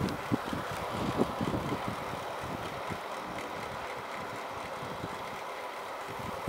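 Wind buffeting the microphone of a camera worn on a moving cyclist's back: low irregular thumps for the first two seconds, then a steady rushing hiss.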